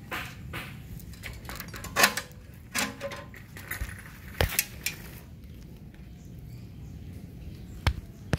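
A handful of sharp, irregular clicks and taps, the loudest about two seconds in, over a low steady rumble.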